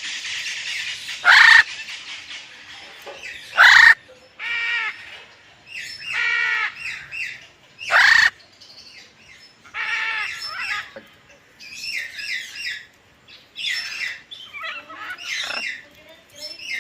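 Several kept birds calling: three loud harsh squawks, about a second and a half in, near four seconds and around eight seconds, with shorter repeated pitched calls between and after them.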